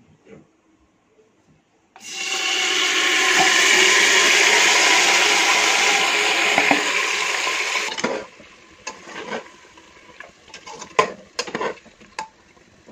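Yogurt-marinated mutton hitting hot oil and ghee in a pressure cooker, sizzling loudly for about six seconds and then dying down abruptly. After that comes a spatula scraping and knocking against the cooker's metal sides as the meat is stirred.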